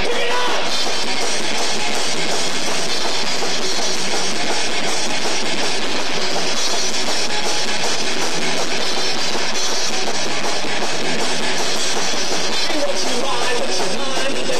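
Live rock band playing loudly: drum kit and electric guitar in a dense, steady wall of sound with no singing. The recording is harsh, with little bass.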